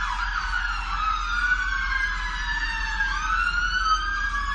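Several emergency-vehicle sirens sounding at once. A fast warbling yelp in the first second gives way to slow, overlapping rising-and-falling wails, and another wail starts about three seconds in.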